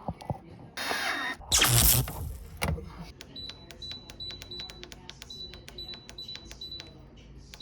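Handling noise and a loud clunk in the first two seconds. Then a GE dishwasher's keypad is pressed button after button, each press a click with a short high beep, about two to three a second, as the newly fitted keypad responds.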